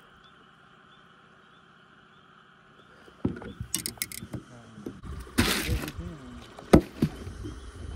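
Handling noise in a small fishing boat as a caught walleye is put away. A few quiet seconds are followed by knocks, clatters and rustling against the boat, a short rushing burst a little past halfway, and one sharp knock near the end.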